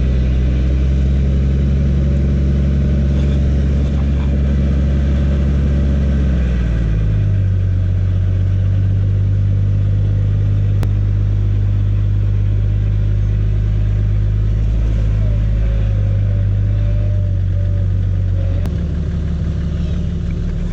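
Toyota 80 series Land Cruiser engine running steadily under load as the bogged truck works its way out of the mud. Its pitch drops about seven seconds in and shifts again near the end.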